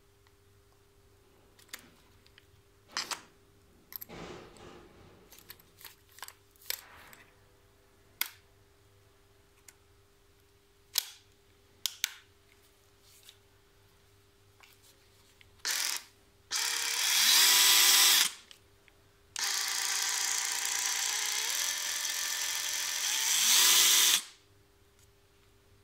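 Clicks and knocks of plastic and metal as a nanoBLADE saw blade is fitted into the blade clamp of a Bosch EasyCut 12 cordless saw. Then the saw runs with no load: a brief blip, a run of about two seconds, and a longer run of about five seconds whose pitch steps up partway through before it winds down.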